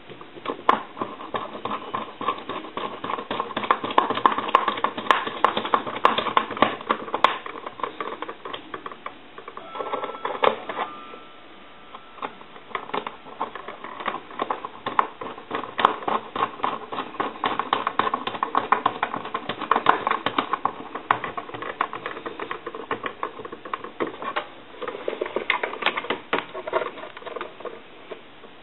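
A dense, steady stream of small clicks, taps and scrapes from hand work on a telephone's parts and hand tools, with a brief lull about ten seconds in.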